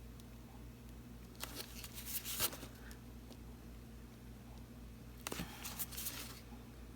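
Faint handling sounds of a wooden skewer popping air-bubble spots in wet acrylic paint and being wiped clean: two short spells of light rustling and ticks, about a second and a half in and again about five seconds in, over a low steady hum.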